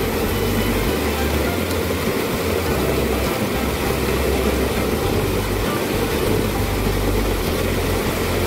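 Fast-flowing water rushing steadily through a narrow rice-field irrigation channel, with an uneven low rumble underneath.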